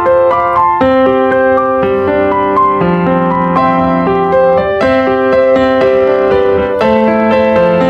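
Background piano music, a gentle melody over held chords.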